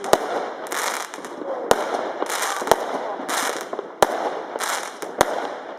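Fireworks going off: five sharp bangs spread through, between repeated rushes of hissing and crackling.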